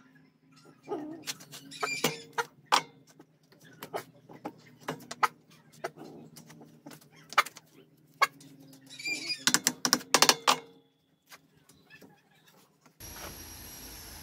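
Scattered sharp knocks and clacks of wooden boards being handled and set against each other, with a quicker run of knocks about two-thirds of the way through.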